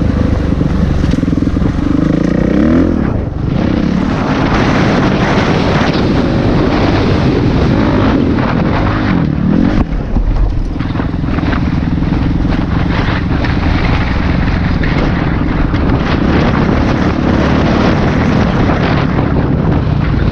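Dirt bike engine running under way on a dirt trail, its pitch climbing and falling a few times as the throttle is opened and closed, with brief drops near three and ten seconds in. Wind noise on the microphone runs under it.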